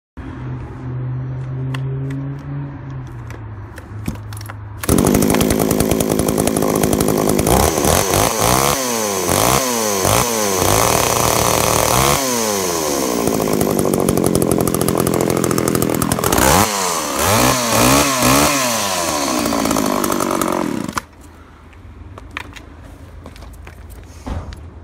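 Zenoah G40AV 39.9 cc two-stroke chainsaw idling, then suddenly revved hard. It is held at high revs with repeated throttle blips that rise and fall in pitch, and the engine sound drops away about four seconds before the end.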